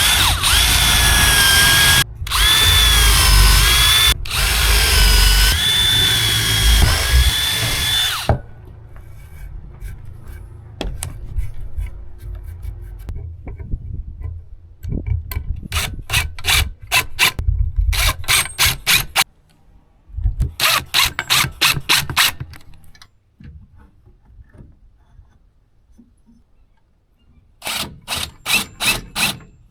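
Power drill running in long bursts for about the first eight seconds, its motor whine rising and falling with speed and stopping briefly twice, typical of driving screws into wood. Later come three spells of fast, evenly repeated strokes, several a second.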